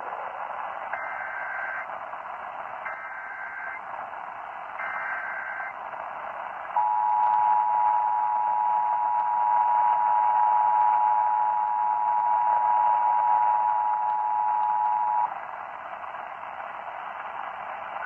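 Emergency Alert System test over AM radio, heard through a Sangean portable radio's speaker: three short bursts of SAME header data tones about a second apart, then the EAS two-tone attention signal held steady for about eight seconds, over constant static hiss.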